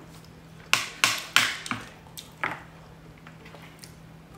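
Crunching of fried kerupuk crackers being bitten and chewed: about six sharp crunches in quick succession in the first two and a half seconds, then quieter, over a faint steady hum.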